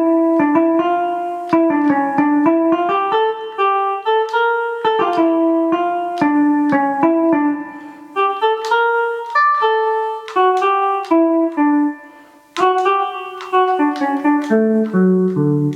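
Travel Sax 2 digital wind instrument playing a single-line melody on its jazz electric guitar preset, one plucked-sounding note at a time, with a short pause about twelve seconds in.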